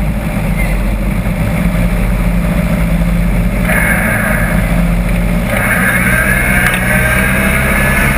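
Engine of a 4x4 off-road buggy running hard in mud, its revs rising and falling repeatedly in the second half.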